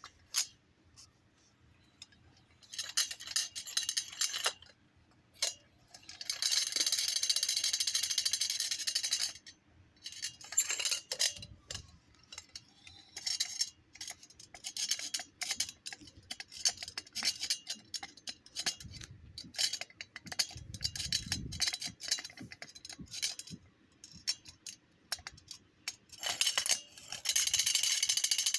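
Toy humming top with a bell, rattling and jingling metallically in irregular bursts, with a longer continuous jingle about seven seconds in and again near the end.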